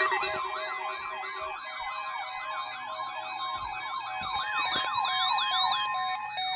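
Electronic emergency alert tones: a steady high weather-radio warning alarm tone with a siren-like tone over it that sweeps up and down about two and a half times a second. Both stop a little before the end.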